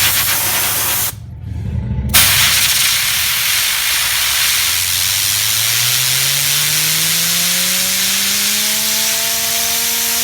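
Loud hiss of a compressed-air jet blowing on a fidget spinner. It breaks off for about a second early on, then starts again and holds steady. From about halfway through, the spinner's whine rises steadily in pitch as the air spins it up faster, levelling off near the end.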